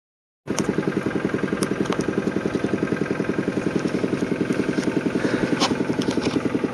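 Vehicle engine idling with a steady, rapid pulse of about nine beats a second, with a few sharp clicks over it. It starts suddenly about half a second in.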